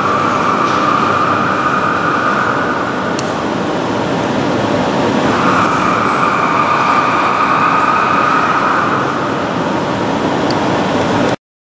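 Heavy machinery running in a machine shop: a steady mechanical rumble with a high whine that swells twice and fades. The sound cuts out briefly near the end.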